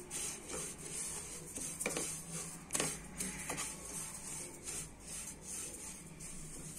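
Wooden spatula stirring and scraping sesame seeds around a nonstick frying pan, a dry rustling hiss with repeated scraping strokes as the seeds are dry-roasted over medium heat.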